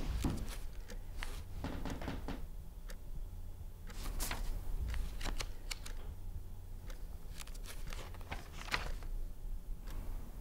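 Scattered light clicks and taps of small objects being handled, irregularly spaced, over a steady low hum.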